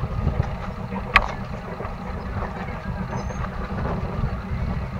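Sailboat's inboard engine idling steadily in slight forward gear, a low rumble. A single sharp knock sounds about a second in.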